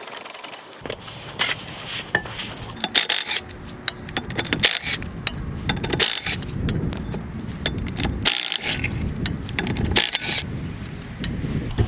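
Hand ratchet wrench clicking in short bursts, several times, as bolts on a 1967 Volkswagen Beetle are worked, over a steady low rumble.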